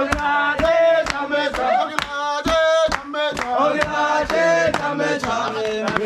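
Men chanting a Swahili call-and-response pounding song over a pestle thudding into a mortar about twice a second, as dried coffee beans are pounded to crack off their husks.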